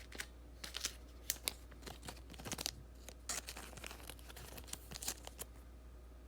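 Trading-card pack wrapper being crinkled and torn open, with the cards handled: a faint, irregular run of crackles and snaps.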